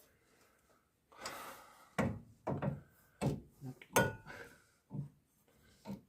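Metal clunks and knocks as a new steering damper is forced by hand against its mounting on a Land Rover 110, its rubber-bushed end too tight a fit to go in: about half a dozen separate knocks, one with a short metallic ring about four seconds in.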